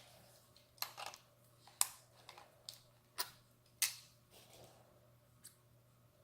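About eight sharp clicks and taps, irregularly spaced, from small parts and tools being handled while working on car turn signal lamps, the loudest two about two and four seconds in.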